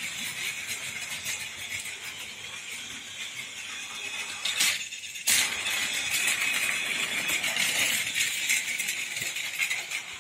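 Battery-powered plastic toy trains running on blue plastic track: a steady whir of the small motors with a continuous rattle of wheels over the track joints. The sound breaks briefly about five seconds in, marked by two sharp clicks.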